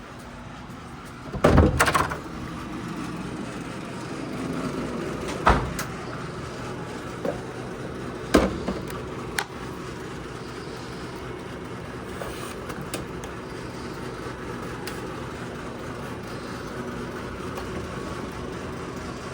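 Steady background hum with a few knocks and clunks: a double knock near the start, then single ones around a quarter and nearly halfway through, and faint clicks later.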